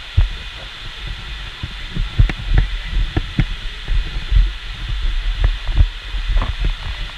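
Irregular low thumps and rumble on the action camera's microphone, with a few sharp clicks, over a steady faint hiss in the hall.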